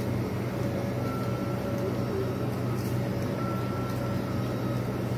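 Steady low hum of running machinery, with a faint high tone that comes and goes a few times.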